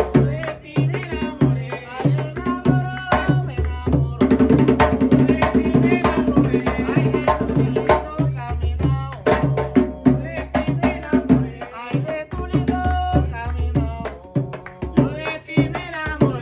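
Bullerengue music: hand drums beating a fast, steady rhythm, with a voice singing over them.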